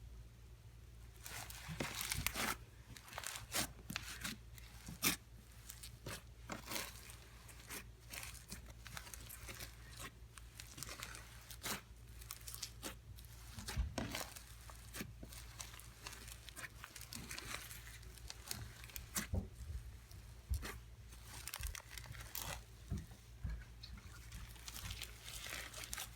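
Slime being squished and stretched by hand, giving irregular sticky crackles and pops that start about a second in.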